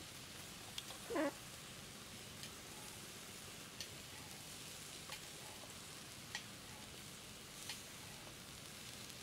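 Chili-and-oil basting sauce sizzling steadily on tarantulas grilling over charcoal, with faint high ticks at an even pace about every second and a half. About a second in, a short animal call sounds, the loudest thing heard.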